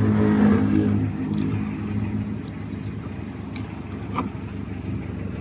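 A motor vehicle's engine running with a steady low hum, loudest in the first two seconds and then fading to a quieter rumble, with a couple of faint clicks.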